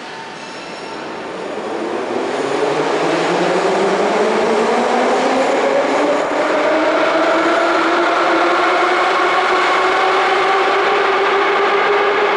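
Metro train's traction motors whining as it accelerates. Several tones rise steadily in pitch, and the sound grows louder over the first few seconds, then holds.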